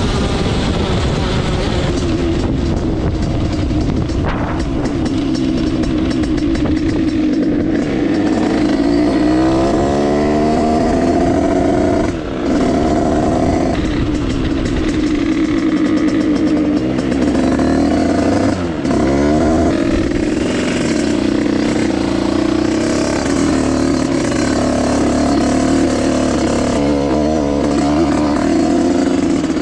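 Two-stroke engine of a Derbi Senda fitted with a Stage6 88cc cylinder kit, running under way with a steady note. Its pitch drops and climbs again briefly about 10, 12 and 19 seconds in as the throttle is closed and reopened.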